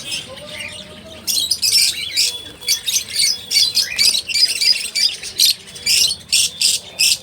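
Small pet birds calling: many short, high-pitched calls in quick succession, starting about a second in.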